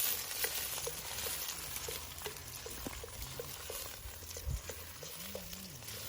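Ginger, garlic and green chillies frying in hot coconut oil in a pan, with a steady sizzle and light clicks of a spoon stirring about twice a second.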